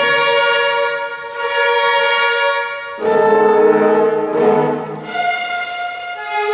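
An instrumental ensemble with brass playing sustained chords, the harmony shifting to a new held chord about every second or two.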